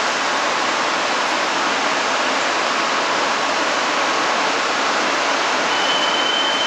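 Steady rushing noise of an electric-locomotive-hauled S-Bahn train running into a station platform, with a thin high tone for a moment near the end.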